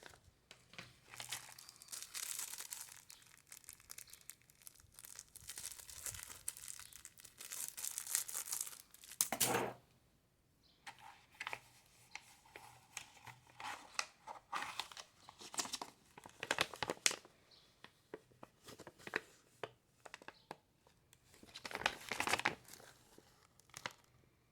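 Packaging of a circuit-board shipment being torn open and crinkled by hand: irregular rustling and crackling with two louder tearing bursts, one about nine seconds in and one near the end.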